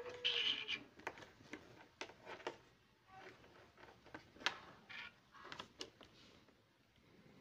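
Light clicks and taps of metal tweezers and a small circuit board being handled on a hard work surface, with a few sharper knocks a little past the middle.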